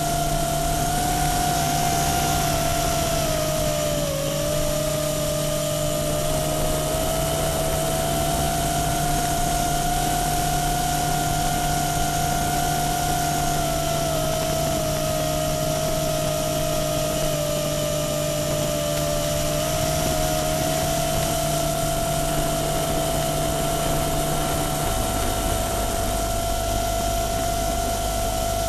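FPV multirotor drone's motors and propellers whining steadily in flight, the pitch wavering slightly with throttle and dipping briefly about four seconds in.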